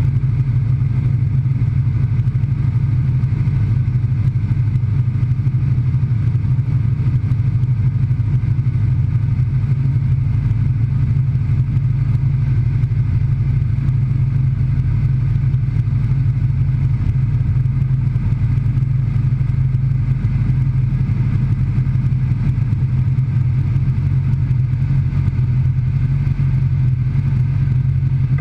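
Single-engine light aircraft's propeller engine running steadily at a constant pitch in cruising flight, heard from inside the cockpit.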